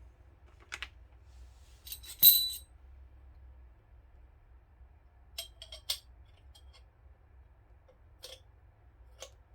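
Metal suppressor baffles clinking and knocking against each other as they are handled and fitted. The loudest is a single ringing clink about two seconds in, followed later by several lighter clicks.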